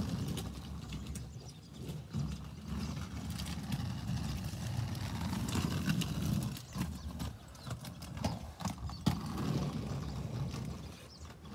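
Quad roller skate wheels rolling over coarse asphalt, a continuous low rumble that swells and fades as the skater moves, with a few sharp clicks.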